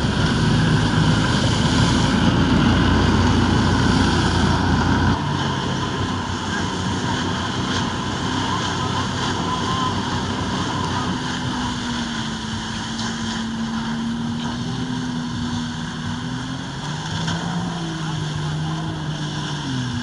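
Personal watercraft engine driving a flyboard's water jets, running continuously with its pitch drifting up and down as the throttle changes. A louder low rumble stops suddenly about five seconds in.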